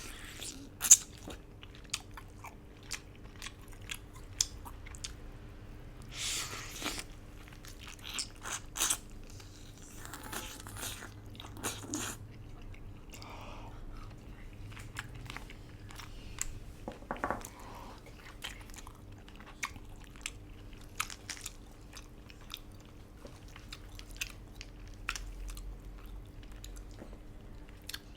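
Close-miked eating sounds of a person eating noodle soup with braised duck: wet chewing and mouth smacks with many sharp clicks. There are a few longer noisy bursts about six, ten and twelve seconds in.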